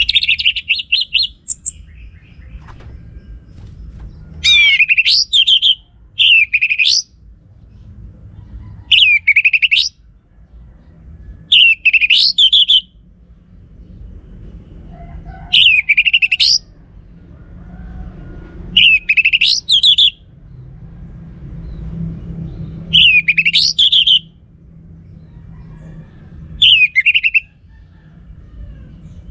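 Orange-headed thrush singing: about nine short, loud, swooping whistled phrases, each a second or so long, repeated every two to three seconds over a steady low rumble.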